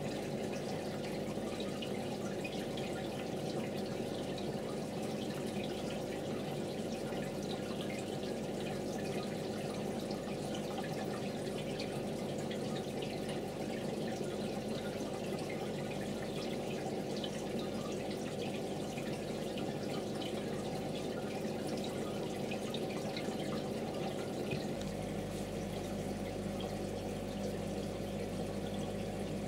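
Aquarium water trickling and dripping steadily, with many small drip ticks over a constant low hum from the tank equipment; the low hum changes about 25 seconds in.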